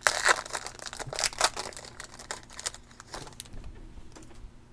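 Trading cards and their packaging being handled: a run of crinkling, rustling strokes, busiest in the first three seconds and fainter after.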